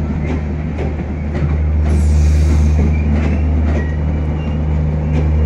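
Bangladesh Railway intercity passenger coaches rolling slowly past, their wheels clicking over the rail joints a few times a second over a steady low rumble. There is a brief hiss about two seconds in.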